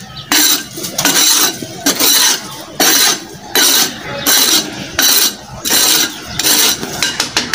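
Short hand broom sweeping dust and soil off a brick-paved floor in quick, even strokes, about one and a half swishes a second.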